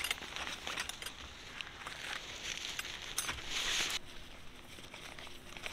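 Rustling and crinkling with scattered light clicks and taps. A brief hiss about three seconds in cuts off suddenly, after which the rustling is quieter.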